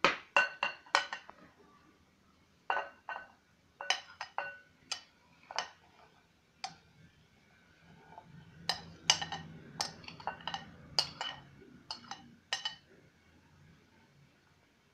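A metal spoon clinking and scraping against glass bowls as chopped apple pieces are tipped from one glass bowl into another. It is an uneven run of sharp, ringing clinks, thickest about two-thirds of the way through.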